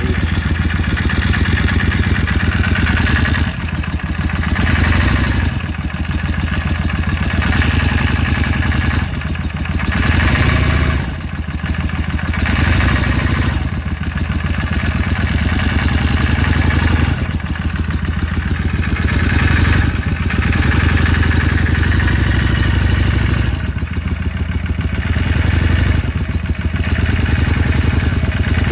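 Yamaha Drag Star XVS650's air-cooled V-twin engine running, its loudness rising and falling every few seconds, with an engine noise that the owner is trying to get diagnosed.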